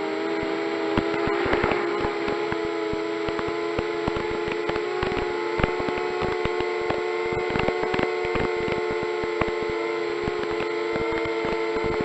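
FPV multirotor's electric motors and propellers humming steadily in flight, several close tones drifting slightly up and down in pitch as the throttle changes, with frequent sharp clicks and crackles over the hum.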